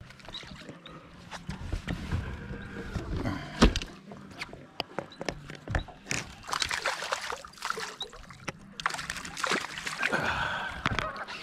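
A hooked fish splashing at the water's surface as it is reeled up beside the boat, with many small clicks and knocks from the baitcasting reel and rod handling. A single sharp knock stands out about a third of the way in.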